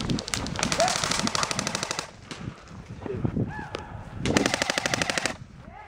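Airsoft electric gun (AEG) firing two full-auto bursts of rapid, evenly spaced shots: a longer one of nearly two seconds, then after a pause a shorter one of about a second.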